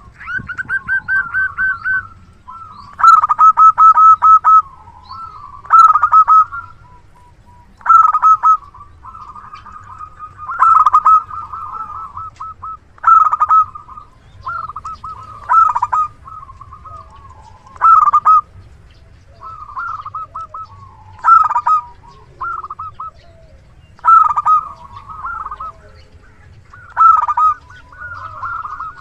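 Zebra dove (perkutut) singing its cooing song over and over: a quick run of rapid, stuttering notes, repeated about every two to three seconds.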